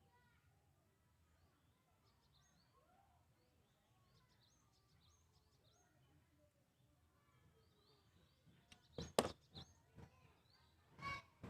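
Faint bird chirping in the background, then a cluster of sharp clicks and knocks about nine seconds in and two more about eleven seconds in.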